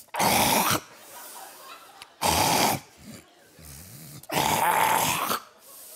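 A man snoring loudly: three long snores about two seconds apart, with quieter breathing between them.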